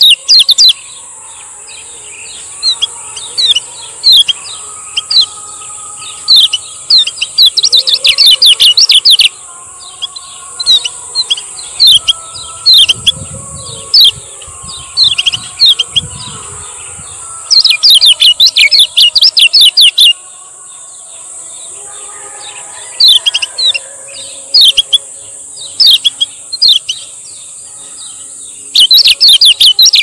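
Male kecial kuning, a yellow white-eye, singing its ciak-ciak song: bursts of rapid high chirps lasting a second or two, at the start, about eight seconds in, about eighteen seconds in and again at the end, with scattered single chirps between them. A steady high hiss runs underneath.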